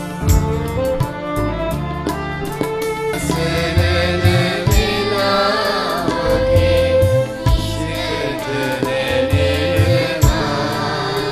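Sinhala Buddhist devotional song (bhakti gee) played live. Sitar and violin play over a low repeating beat, and a children's choir sings from about three seconds in.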